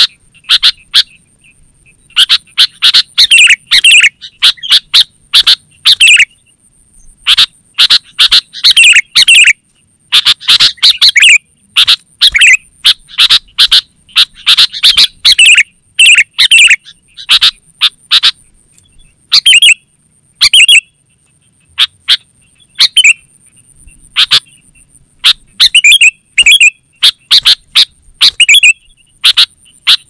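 Sooty-headed bulbul (kutilang) calling energetically: loud clusters of short, chirpy notes, repeated again and again with short pauses between the phrases.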